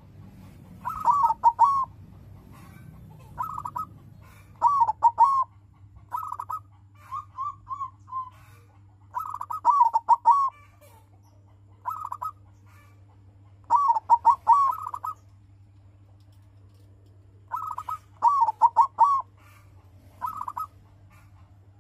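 Zebra dove (perkutut) cooing: short phrases of several quick, clipped coos, repeated about every one to two seconds, over a steady low hum.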